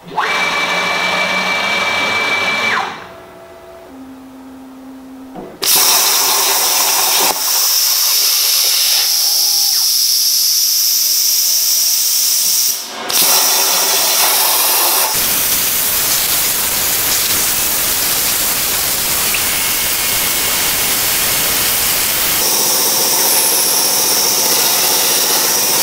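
Thermacut SD55 plasma cutter's machine torch cutting metal plate on a CNC table: a loud, steady hiss of the plasma arc and air. It drops away briefly a few seconds in, where faint steady tones are heard, then resumes, with a short dip about halfway through.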